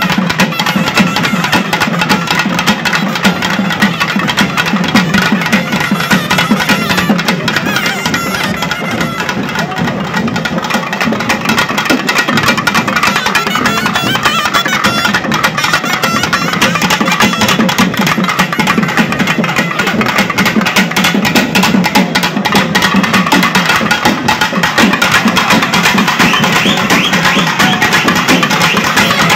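Several thavil barrel drums played fast and hard in dense, unbroken rhythmic patterns, with a reed wind instrument carrying a melody over them: a live Tamil folk (karakattam-style) band.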